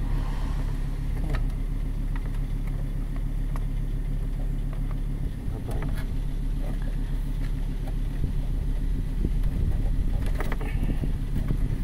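A car engine idling steadily, a constant low hum, with a few faint clicks over it.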